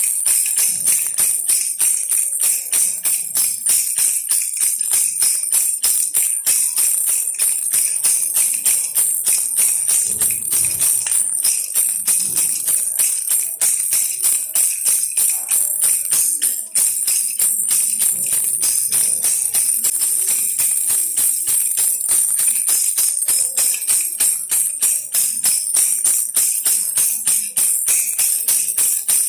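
Baby rattle toy shaken steadily, a bright, even jingling rattle in a fast, regular rhythm.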